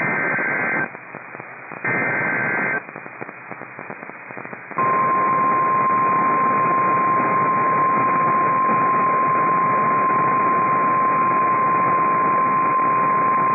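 NOAA Weather Radio alert over a hiss of radio static. First come two short bursts of the SAME digital header, each a warbling data sound about a second long and a second apart. Then, about five seconds in, the steady 1050 Hz warning alarm tone starts and holds, announcing a tornado warning.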